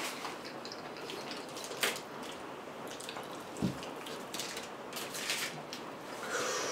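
Close-miked chewing and mouth sounds of someone eating fried chicken with cheese sauce, with scattered soft clicks over a steady hiss and a brief low thump about three and a half seconds in.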